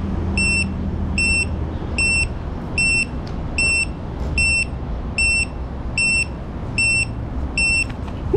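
A 5-inch FPV quadcopter's buzzer beeping after landing: short, high, even beeps a little under a second apart, the lost-model beeper that helps find the downed drone. A low, steady rumble runs underneath.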